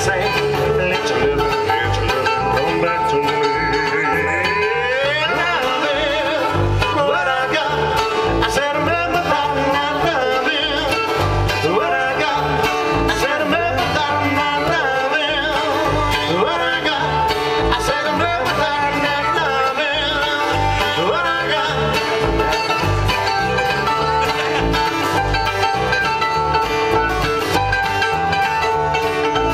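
Live acoustic bluegrass-style band playing: mandolin, acoustic guitar and electric bass in a steady strummed groove.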